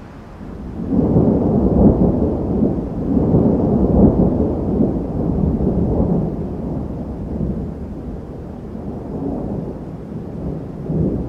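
Thunder rumbling in a thunderstorm: a low rumble builds about a second in, peaks over the next few seconds, then slowly dies away, with a fresh swell near the end.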